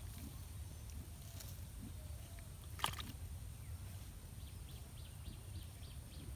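Outdoor ambience by a pond: a steady low rumble, one sharp click about three seconds in, and a run of faint, short, high chirps in the second half.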